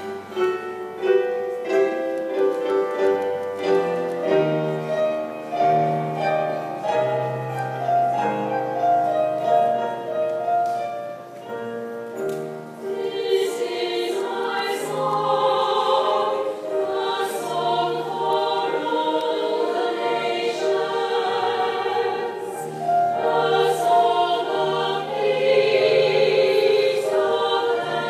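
A school choir singing a patriotic medley with piano accompaniment; the singing grows fuller and louder from about halfway through.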